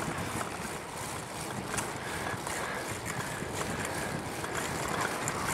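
Steady wind noise buffeting the camera's microphone as the bicycle rides into a headwind.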